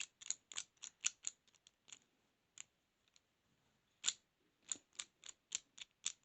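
Lock pick working the pins inside a small padlock: quick light metallic clicks, about four a second, in two runs with a pause of about two seconds in between.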